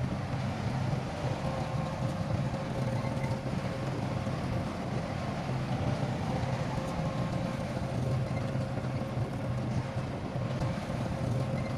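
Heavy diesel engine of earthmoving machinery running steadily: a continuous low drone, with a faint steady whine above it from about a second in.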